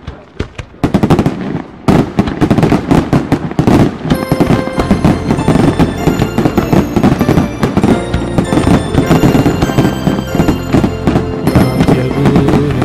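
Fireworks going off in rapid crackling pops and bangs. Music comes in about four seconds in and plays over the fireworks.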